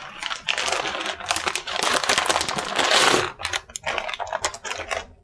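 Plastic bag of dried kelp crinkling and rustling as it is opened and a stiff, dry sheet of kelp is pulled out. Dense crinkling for about three seconds, then a run of separate crackles.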